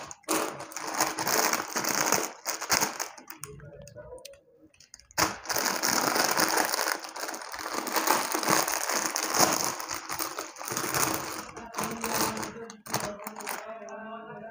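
Foil-lined plastic snack packet crinkling and crackling as it is handled and torn open by hand, in two long stretches with a short lull in between.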